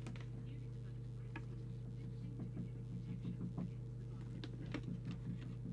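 Steady low hum with faint, scattered short clicks and light taps, more frequent in the second half.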